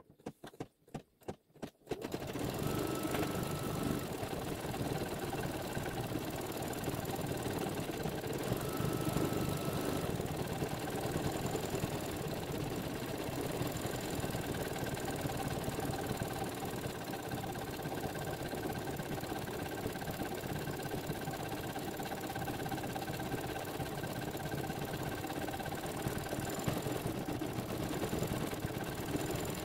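Embroidery machine stitching steadily, sewing the satin edge around the appliqué paint spill. A few short clicks come first, and the machine starts running about two seconds in.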